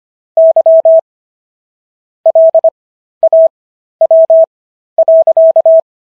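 Morse code sent as a single steady beep tone, keyed in short dots and longer dashes. The characters are sent fast at 25 words per minute, with wider Farnsworth gaps between them for an overall 15 words per minute. About five groups of characters go by, and the tone stops shortly before the end.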